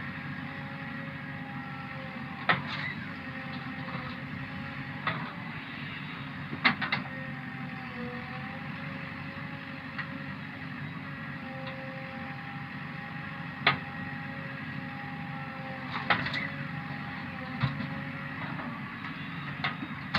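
JCB backhoe loader's diesel engine running steadily under a wavering whine, with sharp knocks every few seconds.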